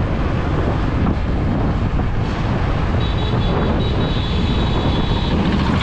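Motorcycle engine running at a steady cruise with wind buffeting the camera's microphone, a continuous loud rumble. A thin, steady high whine joins in about halfway through.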